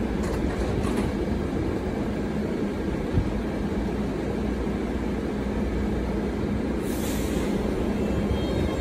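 MBTA Red Line 1800 series subway cars rolling slowly into the station, a steady low rumble with a faint even hum. A short hiss comes about seven seconds in.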